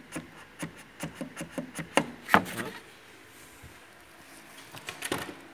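Irregular light clicks and knocks of parts and a board being handled against the machine, with two louder knocks about two seconds in and a short cluster near the end.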